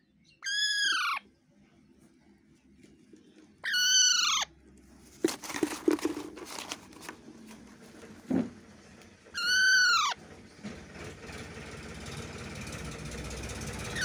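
A parakeet giving three loud calls, each about two-thirds of a second long and rising then falling in pitch: about a second in, about four seconds in, and near ten seconds. Between the second and third calls there are scattered rustles and clicks and a single thump.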